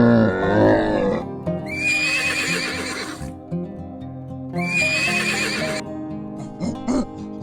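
A horse whinnying twice, two shrill wavering calls each about one to two seconds long, over steady background music.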